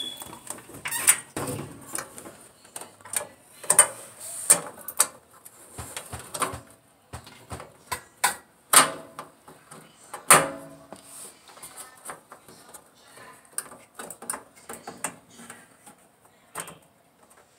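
Irregular clicks, knocks and clatter from dryer parts and tools being handled during a repair, some sharp and loud, others faint, with short pauses between.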